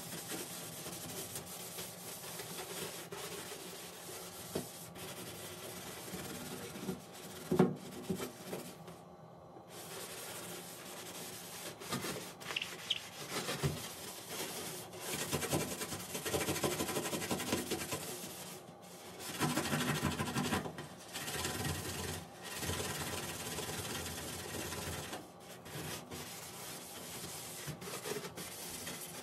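Scouring sponge scrubbing the soapy stainless steel top of a gas hob: a rasping rub in uneven strokes with brief pauses, and one sharp knock about seven and a half seconds in.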